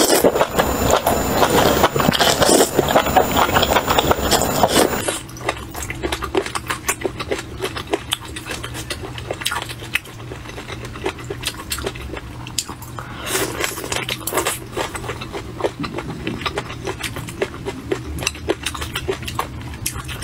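Close-up eating sounds: loud slurping and chewing of enoki mushrooms in chili oil for about the first five seconds. After a sudden cut, quieter chewing and biting of chicken feet follows, heard as many small clicks.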